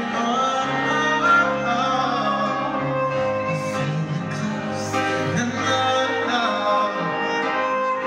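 A live acoustic-arranged pop ballad: a singer's high voice gliding between held notes over accompaniment that sustains long low notes, heard from among the crowd in a large arena.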